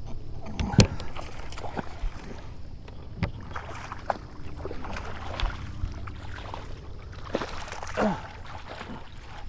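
Handling noise while a hooked fish is fought and landed: scattered sharp knocks and clicks, the loudest about a second in, over a steady low rumble.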